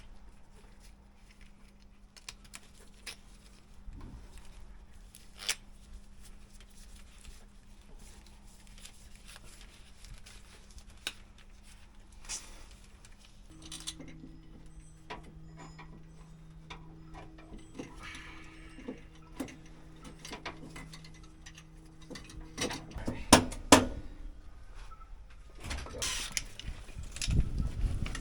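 Scattered light clicks and metallic clinks of hand tools and electrical hardware being handled during outlet wiring work, over a steady low hum that changes pitch about halfway through. A cluster of louder knocks comes near the end.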